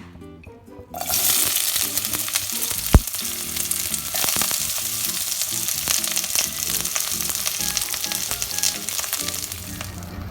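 Food sizzling loudly as it fries in hot oil in a pan. The sizzle starts suddenly about a second in, as the food hits the oil, with one sharp knock a couple of seconds later.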